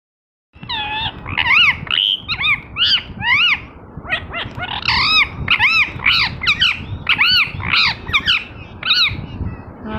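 Green ringneck parakeet giving a rapid run of short, shrill, arching calls, two or three a second, starting about half a second in and stopping shortly before the end.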